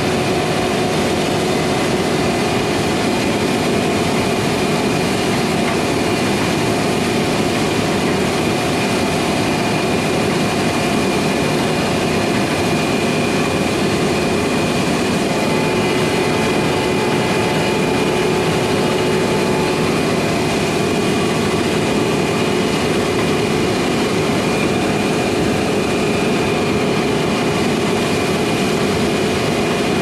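Steady, loud machine noise with a few constant whining tones held throughout, from engines or rotors running at a fixed speed.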